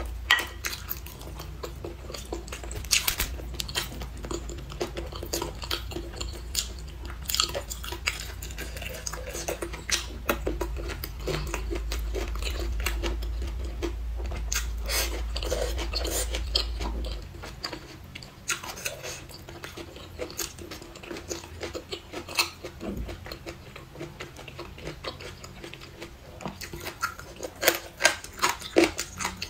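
Close-miked chewing and biting of braised pork trotter and leafy greens: many short, wet clicks and crunches. A low steady hum underneath cuts off about halfway through.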